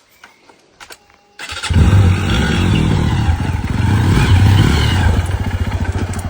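Motorcycle engine starts suddenly about a second and a half in and runs loudly, then eases off near the end.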